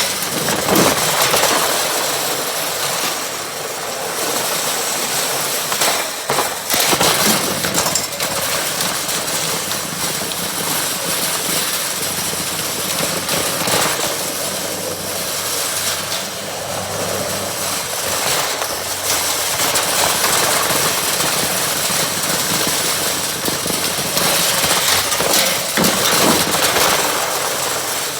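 Riding lawn mower's engine running steadily, with a few brief louder spells.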